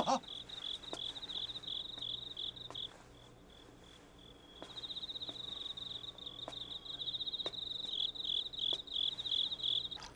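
Crickets chirping in a high, rhythmic trill of about four chirps a second, falling silent briefly about three seconds in and starting again a second and a half later.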